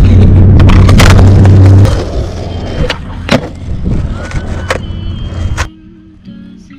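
Skateboard on asphalt: a loud low rumble for the first two seconds, then several sharp clacks of the board popping and landing. Near the end the sound drops suddenly to faint guitar music.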